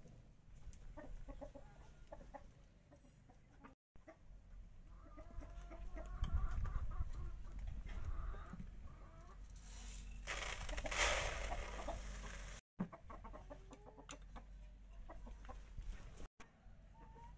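Chickens clucking, and about ten seconds in a loud rush of dry grain feed poured into a plastic bucket feeder for about two seconds.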